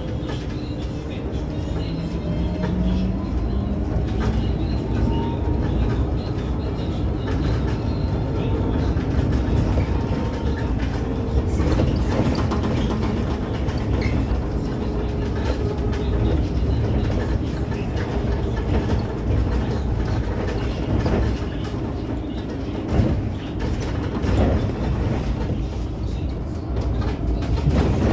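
Electric city bus driving, heard from the driver's cab: a steady low road rumble with rattles and knocks from the body and fittings. The electric traction motor's whine rises in pitch during the first few seconds as the bus picks up speed.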